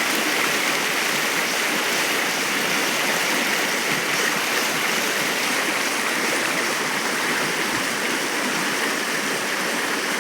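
River water flowing, a steady, even rush of water noise.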